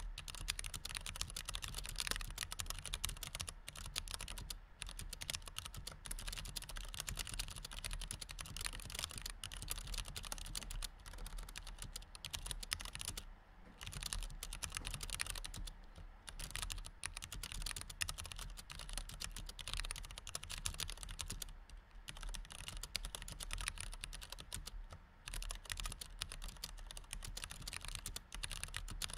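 Continuous fast typing on a white low-profile computer keyboard: a dense run of key clicks, broken by brief pauses about 13, 16, 22 and 25 seconds in.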